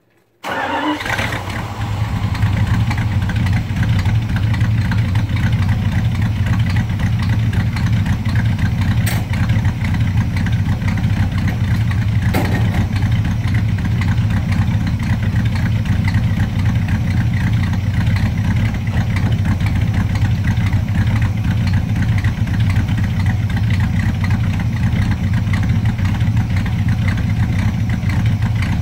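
1979 Dodge D300 truck engine, fitted with a new Edelbrock Performer 600 cfm four-barrel carburetor, starting warm about half a second in, catching at once and settling into a steady idle.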